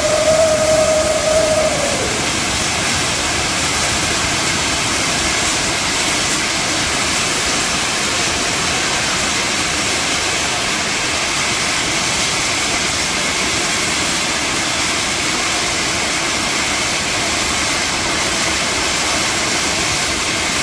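Fountain fireworks on a festival fireworks tower spraying sparks with a loud, steady rushing hiss. A high whistling tone sounds over it at the start, then drops and stops about two seconds in.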